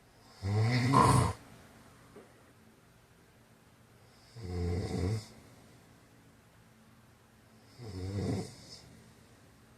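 A man snoring: three snores about three and a half seconds apart, each lasting about a second, the first the loudest.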